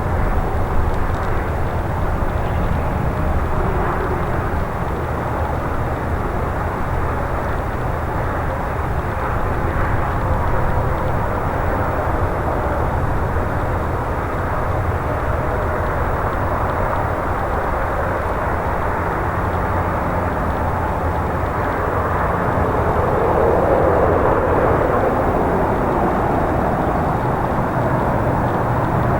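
Embraer E175 regional jet's engines running, a steady broad jet rumble that swells a little near the end.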